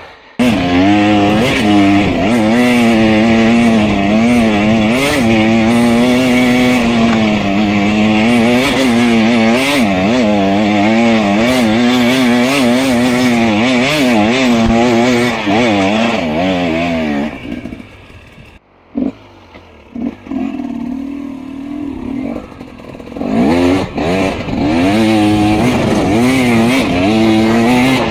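Enduro motorcycle engine under load, its pitch wavering up and down quickly with the throttle. It falls away about seventeen seconds in and comes back loud for the last few seconds.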